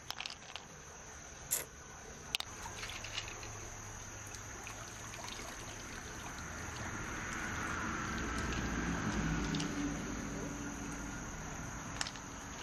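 Steady high insect trill, with a few sharp clicks in the first seconds and another near the end. Water swishes and runs off a mussel shell of pearls being rinsed in a stream, swelling to the loudest point around the middle.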